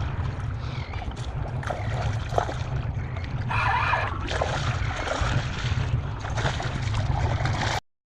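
Water splashing and sloshing around a kayak while a hooked spotted seatrout is fought alongside, over a steady low rumble of wind on the microphone. The loudest splash comes about three and a half seconds in, and the sound cuts off suddenly near the end.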